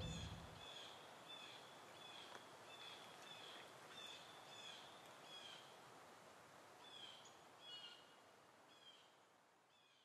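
Squirrel's alarm calls at a fox: short, high chirps repeated a little under twice a second, faint and fading out near the end.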